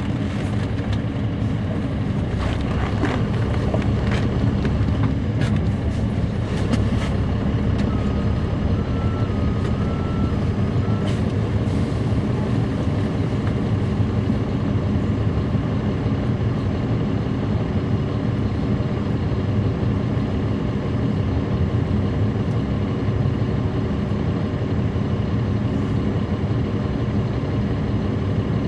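Caterpillar C13 ACERT diesel engine of a 2009 NABI 416.15 (40-SFW) city bus heard from on board, running with a steady drone. A few sharp clicks and rattles come in the first several seconds, and a faint short tone sounds about eight seconds in.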